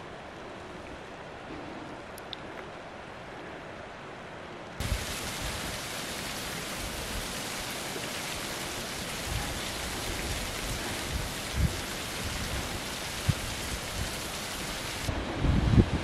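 Small mountain waterfall pouring and splashing down a rock face, a steady hiss of falling water. About five seconds in it turns suddenly louder and fuller. A few low thumps of wind on the microphone come later, strongest near the end.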